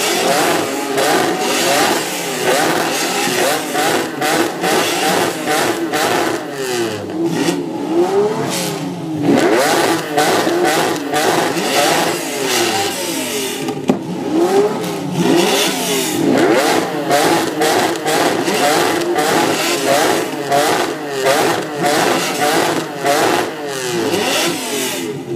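Three Lamborghini Countach V12 engines revved repeatedly, their exhausts sweeping up in pitch and falling back again and again, the rev blips of the different cars overlapping.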